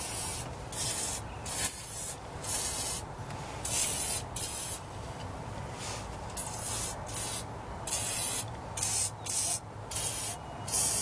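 Aerosol can of penetrating lubricant spraying in many short hissing bursts, with a pause about halfway, to loosen rusted bolts.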